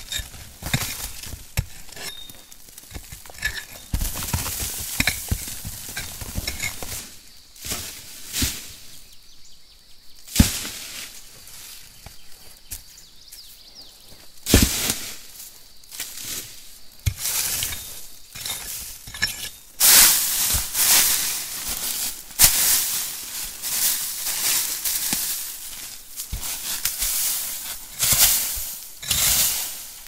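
Forest ground being cleared by hand: a crackling rustle of debris being swept and scraped aside, broken by irregular louder scrapes and knocks.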